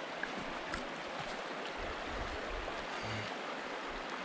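Shallow mountain creek running over rocks: a steady rush of water.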